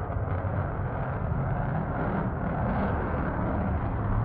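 Fighter jet's engine noise as it flies overhead, a steady low rumble.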